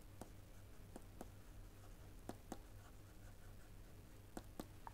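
Faint taps and scratches of a stylus writing on a pen tablet, a few light ticks spread unevenly, over a quiet low room hum.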